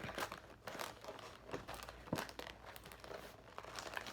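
Crinkling of a plastic snack wrapper being handled, in many short irregular crackles.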